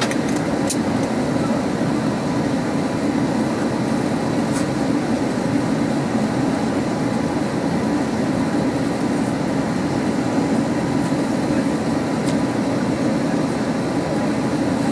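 Steady cabin noise inside an Airbus A380-861 in flight: an even, low rush of airflow and Engine Alliance GP7200 engine noise, with a few faint ticks.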